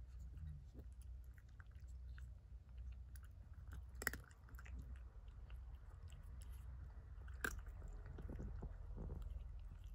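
An orange tabby cat eating from a raised ceramic bowl: faint chewing and licking with many small clicks. Two sharper clicks stand out, about four seconds and seven and a half seconds in.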